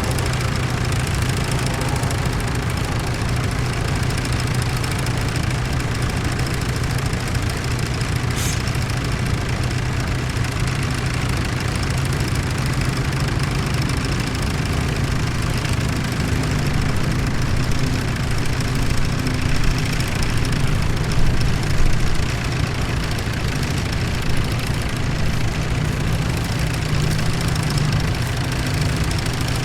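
Tractor engine running steadily, a continuous low hum that swells slightly about two-thirds of the way through.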